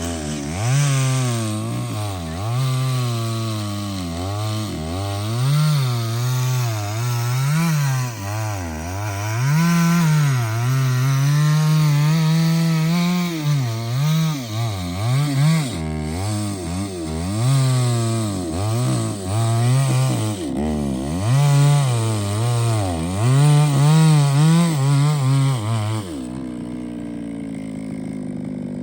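Chainsaw cutting into a big hardwood trunk, its engine speed rising and dipping as the chain bites and frees in the cut. About three seconds before the end it drops back to a lower, steady idle.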